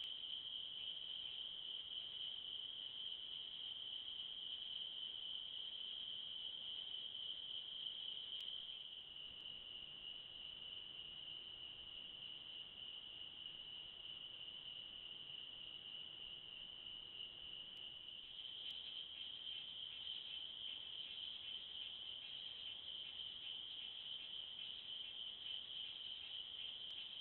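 Steady night-time chorus of insects, crickets, a continuous high trill that shifts slightly in pitch and loudness twice.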